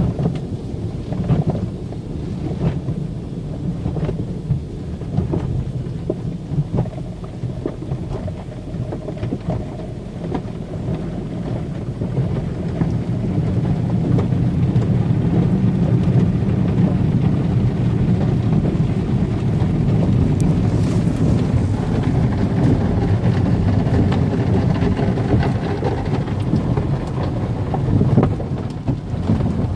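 Car wash water spray drumming on a car: a steady low rumble with scattered knocks, growing louder and steadier about twelve seconds in.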